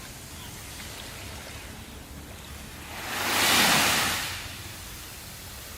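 Ocean surf: a low steady wash, with one wave swelling and breaking about three seconds in, then fading back.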